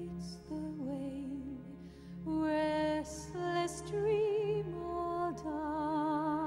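Background music: a slow melody of held notes with vibrato over a steady low accompaniment.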